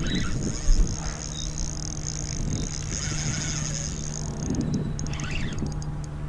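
Spinning reel's drag buzzing steadily as a big snook runs and takes line, stopping briefly near the end. A steady low hum runs underneath, and a single thump comes just under a second in.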